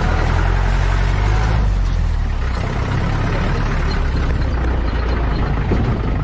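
Off-road vehicle's engine running as it drives along a rough forest track: a steady low drone with even road noise over it.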